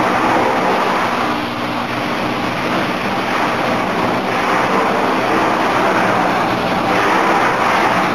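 Plasma cutting table running: a steady, loud hiss with a faint hum underneath.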